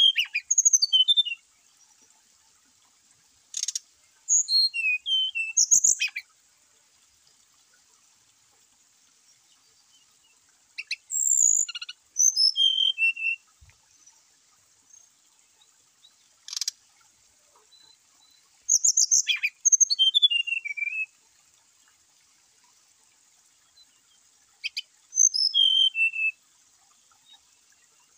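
Brown-chested jungle flycatcher singing: short phrases of clear whistled notes, many sliding down in pitch, each phrase a second or two long and repeated every five or six seconds with silent pauses between.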